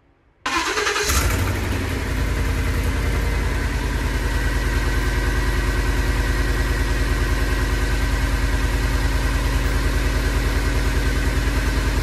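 Ford 5.4-litre V8 starting about half a second in, catching at once and settling into a steady idle with an even, fast pulsing. Cylinder 7 is not firing, its ignition coil left unplugged, so the engine idles on seven cylinders.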